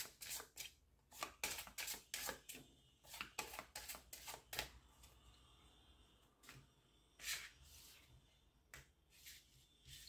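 A deck of oracle cards being shuffled by hand: a quick run of soft card snaps and flicks for the first few seconds, then a few separate slides and taps as the cards are laid out and spread on the table.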